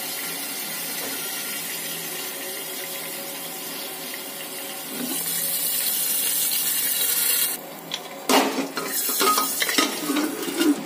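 Steady sizzling hiss of hot oil with popcorn kernels in an aluminium pressure cooker, louder for about two and a half seconds from about five seconds in, then cutting off. After that come several metal clanks and knocks as the pressure cooker's lid is fitted back on and its handle brought over.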